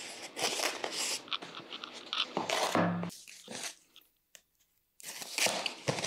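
Cardboard box being handled and opened: rustling, crunching and tearing of cardboard and packing tape, with a near-silent gap of about a second past the middle.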